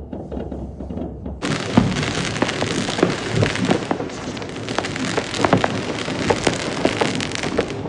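Dense crackling of New Year's Eve fireworks and firecrackers, a continuous patter of small pops with some louder cracks. It starts suddenly about a second and a half in, after a low rumble.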